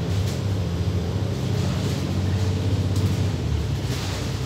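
Cabin noise of an Alexander Dennis Enviro500 double-decker bus under way: a steady low rumble from the engine, drivetrain and road, with a few light rattles from the cabin fittings.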